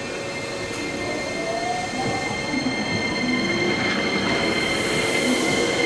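Hankyu electric commuter train moving at the station platform, with a steady high-pitched squeal over the running rumble, growing louder.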